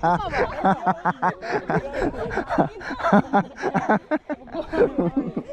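Several people's voices, talking and chuckling.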